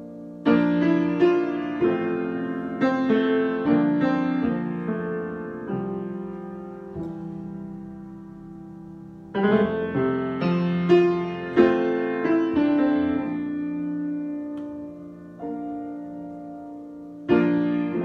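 Grand piano played solo in an improvisation: chords and melody notes struck in short clusters, then left to ring and fade. New phrases start about half a second in, about nine seconds in, and again near the end.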